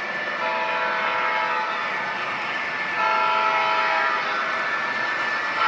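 Sound system of an MTH Railking ES44AC O-gauge model diesel locomotive blowing its multi-note air horn twice, each blast a little over a second long, the second louder. Under the horn runs the steady sound of the diesel engine and the running train.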